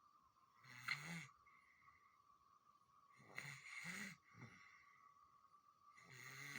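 A baby snoring in its sleep: three snoring breaths, about three seconds apart.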